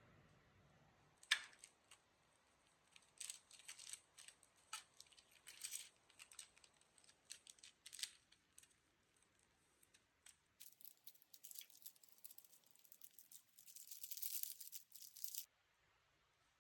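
Faint, scattered clicks and short rustles of small objects and packaging being handled, with a denser scratchy rustle a few seconds before the end that stops abruptly.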